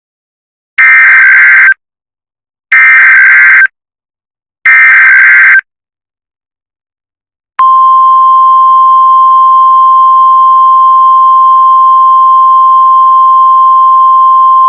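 Emergency Alert System header: three harsh, buzzy bursts of digital data tones, each about a second long, a second apart. About halfway through, a long, steady single-pitch alert tone begins and holds. Together they mark the start of a National Weather Service warning broadcast.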